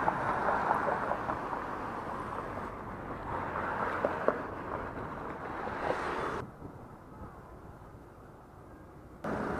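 Wind rushing over the microphone and road noise from a moving bicycle among city traffic. About six and a half seconds in, the sound drops abruptly to a quieter, muffled low rumble, then jumps back up just before the end.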